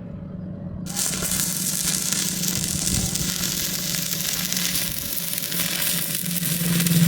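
Welding arc struck about a second in, then burning with a steady crackling hiss over a low electrical hum.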